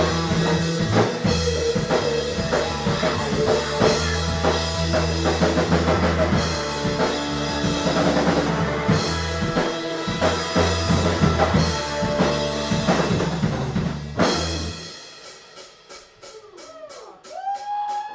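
Live rock band playing with drum kit and electric guitar. About fourteen and a half seconds in the band drops out, leaving a quick run of evenly spaced ticks and bending guitar notes, and the full band comes back in near the end.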